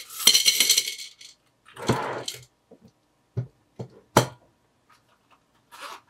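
Loose coins tipped from a zippered coin purse into a glass jar: a jingling rush of coins in the first second, then another short jingle, a few single clinks, and a brief rattle near the end as the remaining change is handled.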